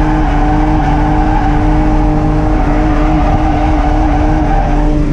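Ford Barra straight-six engine in a Nissan R31 Skyline drift car, held at high revs through a drift and heard from inside the cabin. The engine note is loud and steady, wavering slightly in pitch as the throttle is worked.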